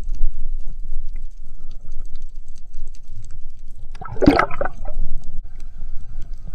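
Water noise heard through an underwater camera housing: a steady low rumble and rush of water as the diver moves, with a brief louder burst of water noise about four seconds in.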